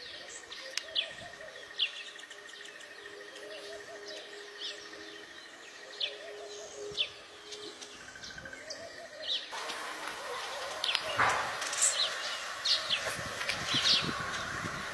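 Small birds chirping, short sharp calls repeating every second or so over steady outdoor background noise. The background noise becomes louder and fuller about ten seconds in.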